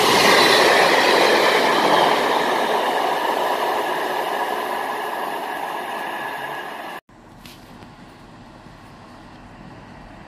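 Coaches of a passing train rushing by on the through line, the noise fading steadily as the train draws away. It cuts off abruptly about seven seconds in, leaving a much quieter steady background hum.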